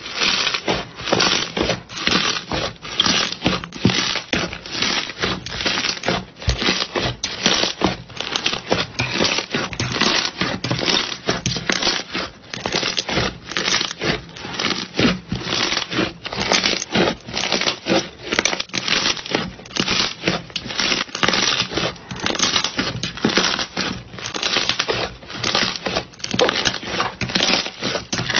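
Hands squeezing and kneading a thick, fluffy slime, giving a dense, uneven run of crackles and small pops.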